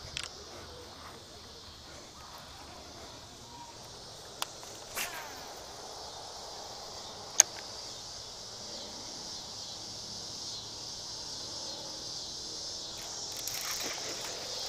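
Summer evening insect chorus: a steady, high-pitched drone that grows slightly louder, with a few faint sharp clicks from handling of the fishing rod and reel.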